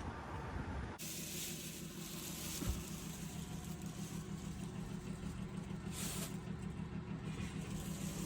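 A car engine idling steadily, starting abruptly about a second in with a low, evenly pulsing hum.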